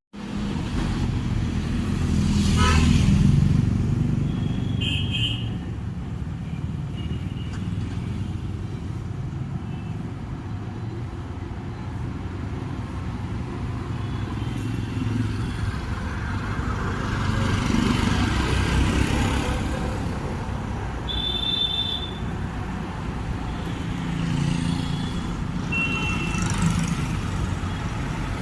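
Steady rumble of motor-vehicle engines, like road traffic with motorcycles passing, swelling and easing a few times, with a few short high-pitched tones.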